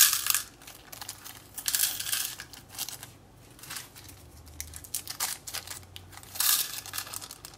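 A small plastic zip-lock bag of metal eyelet washers crinkling as it is handled, in three louder bursts, with light clicking of the washers between.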